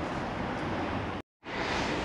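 Steady outdoor town-street ambience: an even rush of wind and distant traffic, broken by a moment of silence just over a second in.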